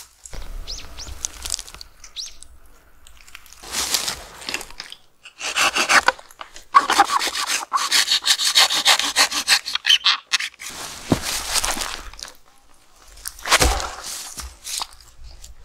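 Hand saw cutting through the hinge wood between a felled persimmon trunk and its stump: about five seconds of quick, rasping saw strokes. A few separate crunches and knocks of wood come before and after.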